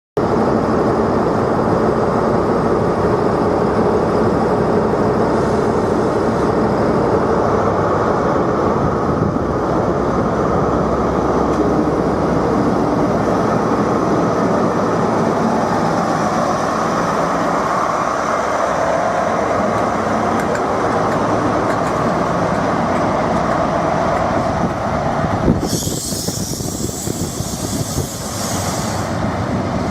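Train running on the rails with a steady loud rumble. About 26 seconds in, a high hiss comes in for a few seconds and then stops.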